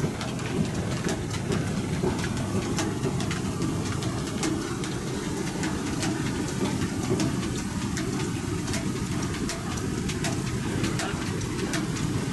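Steam-engine-driven sawmill running: the flat belts, pulleys and shafting turn with a steady low rumble and frequent sharp clicks.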